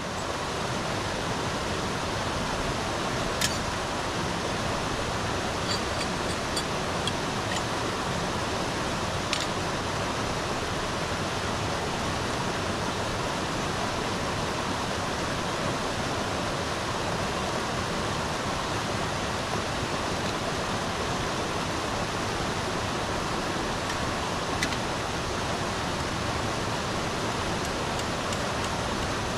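Mountain river water rushing steadily over rocks, with a few faint ticks about three, nine and twenty-five seconds in.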